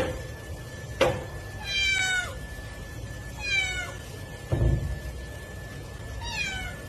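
A cat meowing three times, each meow falling in pitch, with a sharp click about a second in and a dull thud between the second and third meows. A faint steady high tone runs underneath.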